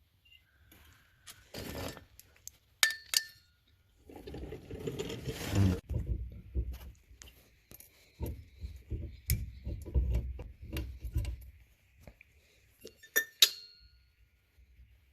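Hand tools and loose metal parts clinking and ringing, with scraping and a run of dull knocks, as drive shaft bolts are undone with wrenches.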